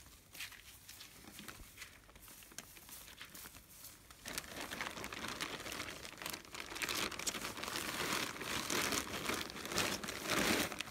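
Polythene bag crinkling and straw rustling as boiled straw is packed into a mushroom bed: faint scattered rustles at first, turning to a steady dense crinkling about four seconds in.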